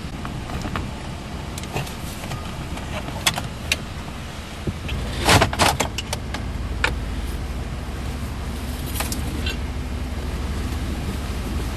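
Scattered clicks and knocks from handling inside a truck cab, with a cluster of louder knocks about halfway through. A steady low hum sets in at the same time and carries on.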